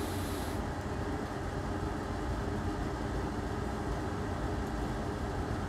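Steady fan whir and rush of air. A higher hiss cuts off about half a second in.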